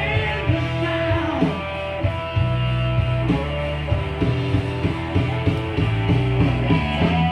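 Rock music with guitar and heavy bass notes playing loud through a PA system and speakers.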